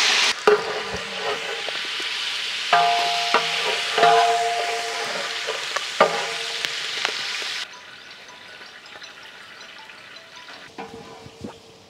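Green chillies and curry leaves sizzling in hot oil while being stirred, with a few knocks of the spoon against the pot. The loud sizzle drops sharply about two-thirds of the way through, leaving a quieter sizzle.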